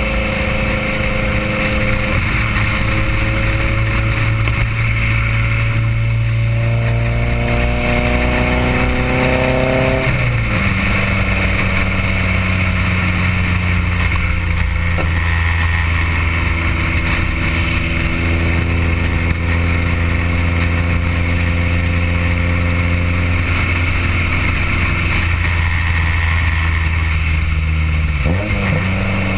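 Honda CRX's JDM B16A four-cylinder engine heard close to its custom sidepipe exhaust (4-1 header, test pipe, resonator, SLP Loud Mouth muffler) while driving. The note climbs slowly for several seconds, drops sharply about ten seconds in, then holds a steady drone, with another brief dip near the end.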